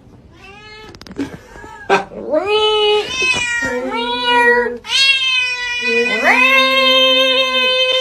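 A cat yowling in a series of drawn-out meows, each rising in pitch and then held. The calls start faint and get louder after about two seconds, with the longest call near the end.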